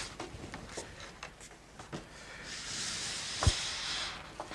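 A sheet of watercolour paper being handled and rubbed to take its curl out: a steady papery swish about two and a half seconds in, light taps throughout, and one sharp knock about three and a half seconds in.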